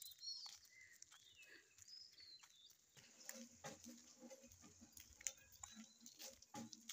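Faint birds chirping, short curving calls in the first few seconds, with scattered soft clicks of footsteps on the road.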